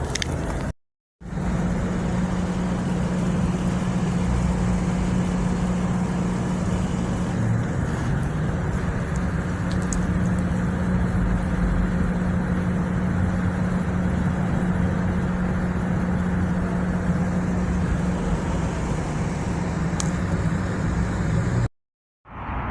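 Steady road and engine noise of a car driving, with a constant low hum. It drops out briefly about a second in and again near the end.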